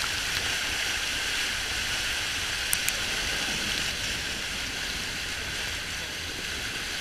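A vehicle's tyre churning through muddy water and slush, throwing spray against the wheel and fender: a steady rushing splash. Two sharp clicks a little under three seconds in.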